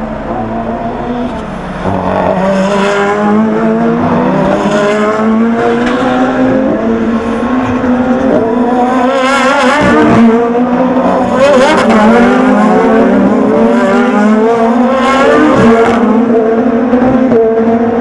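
Several GT race cars going through a chicane one after another, engines dropping in pitch as they brake and downshift, then revving back up as they accelerate out. The sound grows louder about two seconds in and stays loud, with several cars overlapping.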